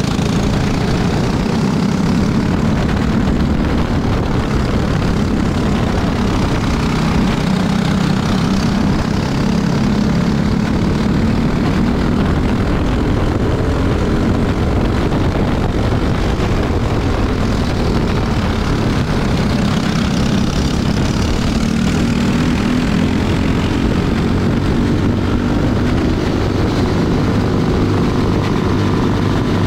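Racing go-kart's single-cylinder four-stroke engine running hard on track, its pitch rising and falling with the corners and straights.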